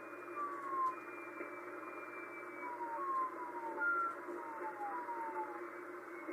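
Unidentified signal in shortwave receiver audio on 4631 kHz: about half a dozen short pings, each dropping in pitch, over steady static hiss.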